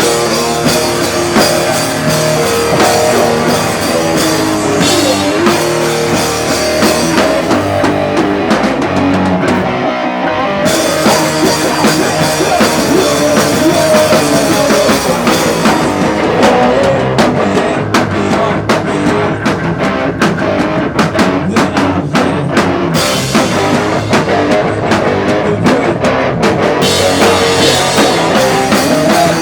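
Live rock band playing a song, loud drum kit and electric guitars throughout, with a short break in the cymbals about ten seconds in before the full band comes back.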